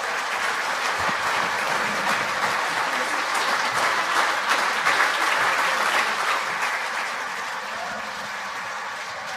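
Audience applauding, swelling to its loudest about halfway through and then slowly dying down.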